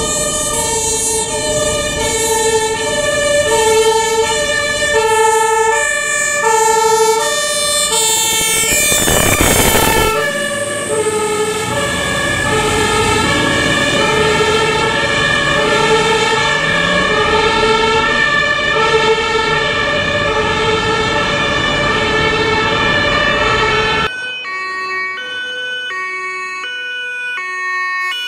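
German fire engine two-tone sirens (Martinshorn) sounding, stepping back and forth between a high and a low note, with two sirens overlapping out of step for a long stretch. A loud rush of noise passes about nine seconds in. After a cut near the end, a single two-tone siren sounds more quietly.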